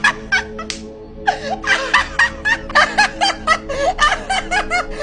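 Stifled snickering in short, squeaky bursts, a few a second and coming faster from about halfway through, over background music with steady held notes.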